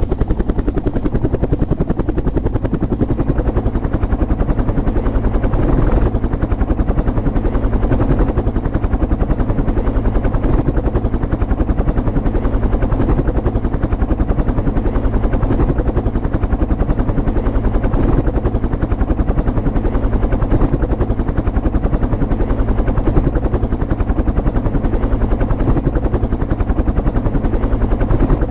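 Helicopter in flight, its rotor beating fast and steady at an even level.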